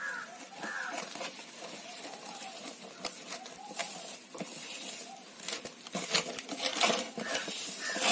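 A hand mixing chopped banana stem into a crumbly pakoda batter of cornflour, spices and egg in a steel bowl: quick, irregular rustling and crackling of the moist mix, louder near the end.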